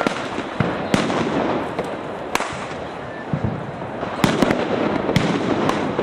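Firecrackers going off: a continuous crackle of small pops with separate sharp bangs every second or so, two in quick succession a little past four seconds in.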